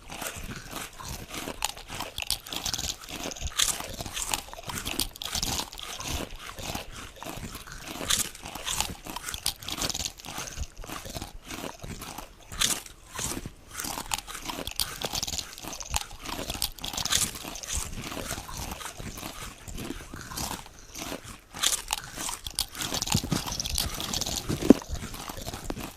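Potato chips being bitten and chewed: a continuous run of irregular, crisp crunches.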